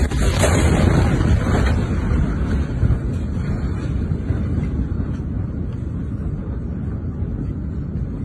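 Blast wave of a huge explosion reaching a phone filming it: a sharp crack right at the start, then a loud, deep rumble with wind buffeting the microphone and a few knocks. It slowly dies down over several seconds.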